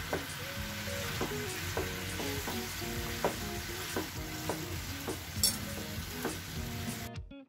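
Mutton curry sizzling in a non-stick frying pan while a spatula stirs it, with small scrapes and taps of the spatula against the pan. The sizzle cuts off abruptly about seven seconds in.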